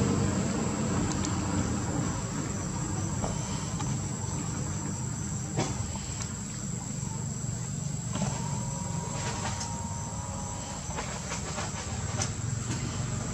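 Steady low rumble with a constant thin high-pitched whine over it and a few faint scattered taps and clicks.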